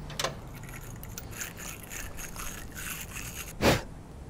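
Wire battery-terminal brush scraping the inside of a new battery terminal in short, repeated scratchy strokes, scuffing the contact surface clean, with one louder thump near the end.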